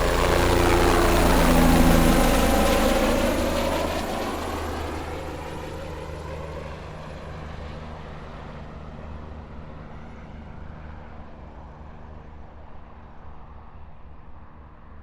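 Helicopter flying past and away after take-off: its rotor and engine sound is loudest about two seconds in, where the pitch drops, then fades steadily into the distance.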